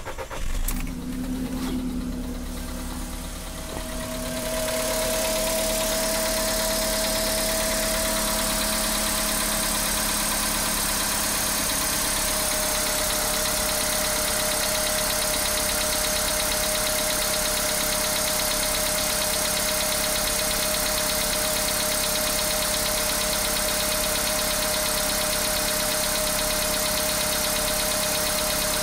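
Car engine idling with a knock, which the owner ties to running low on fuel. The sound is uneven for the first few seconds, then settles into a steady idle.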